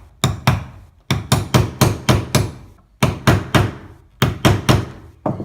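Hammer striking a small cold chisel, about fifteen sharp blows in quick runs of two to four, spreading the tangs of brass split rivets set on a hard popper snap base.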